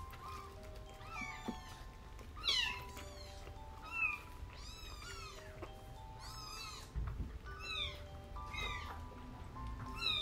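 Young kittens mewing again and again, high-pitched calls about once a second, some overlapping at different pitches, over soft background music of slow held notes.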